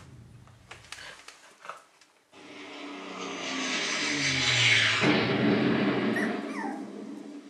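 Shiba Inu puppies vocalising, with whimpers and growls. A long, rough run of sound starts about two seconds in, grows louder, and eases off near the end.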